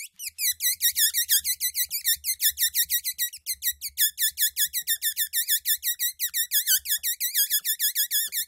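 A balloon deflating, air squealing out through its stretched neck: a high-pitched whistle that warbles in rapid pulses, about six a second, starting suddenly after silence.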